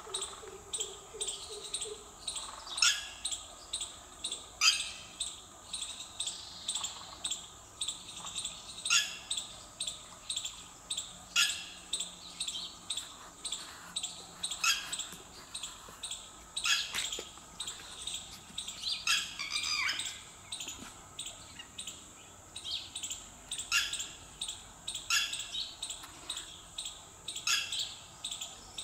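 Small birds chirping outdoors, sharp calls every second or so with a longer falling call about twenty seconds in, over a steady high-pitched drone.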